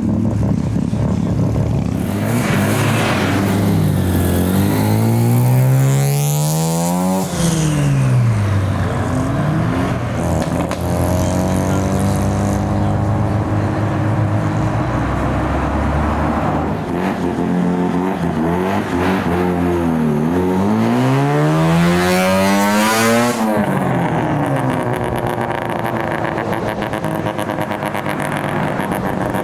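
Rotary-engined cars running hard on the road, engine pitch climbing and falling repeatedly. There are two stretches of hard revving, around five to eight seconds in and again from about seventeen to twenty-three seconds.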